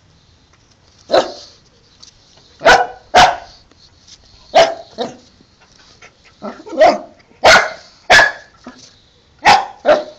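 Dog barking repeatedly, about ten short sharp barks, several coming in quick pairs.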